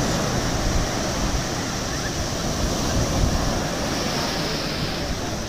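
Sea surf breaking and washing up the shallows, a steady rushing noise, with wind rumbling on the microphone.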